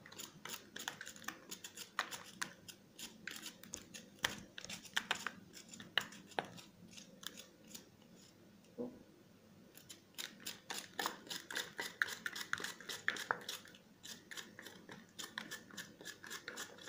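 Black summer truffles being shaved on a small hand-held mandolin: quick, irregular scraping strokes of truffle against the blade, pausing briefly about eight seconds in before picking up again.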